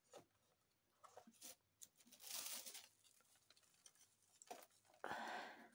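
Faint rustling and crumbling of potting soil being pinched up and sprinkled by hand into a small pot, with a few light taps. There is one soft rustle a little before halfway and a longer one near the end.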